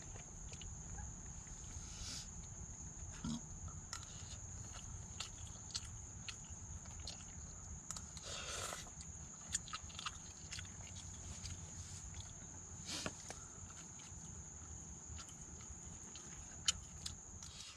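Insects, crickets or similar, keep up a steady high-pitched chirring. Scattered drips tap irregularly over a low steady rumble, the sort of patter rain makes on a tarp.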